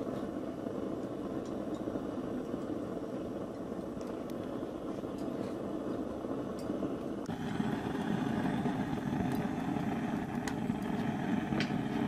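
A steady low mechanical drone, like an engine running at a distance, with a few faint clicks; it steps up abruptly and gets louder about seven seconds in.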